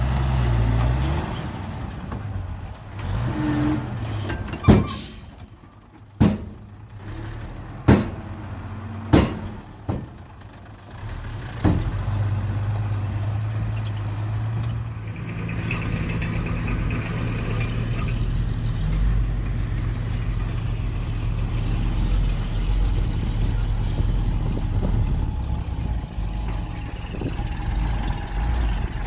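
Heavy diesel engine of earth-moving machinery running, with about six sharp bangs in the first half, then running steadily.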